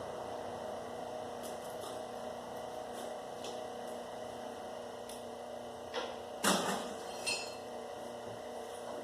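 Copper wire stripper running with a steady hum while wire is fed through it, with scattered light clicks. About six and a half seconds in, a short clatter sounds, as stripped copper wire drops to the floor.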